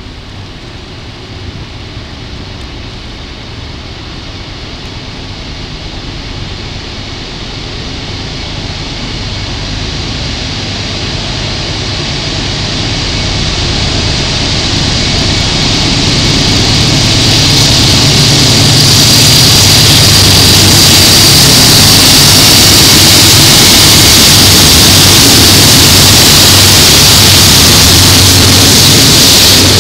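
Diesel locomotives hauling a double-stack intermodal freight train, approaching and passing. Their engine drone grows steadily louder for about the first eighteen seconds. Then it becomes a loud, steady rumble with a strong hiss as the locomotives and container cars go by.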